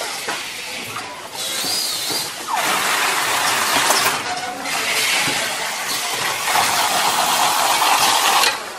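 Automatic carton sealing machine running as a cardboard box is fed through it on the roller conveyor to have its flaps folded and taped. The sound is a loud hiss-like machine noise that swells about two and a half seconds in, with a brief wavering whistle around two seconds in.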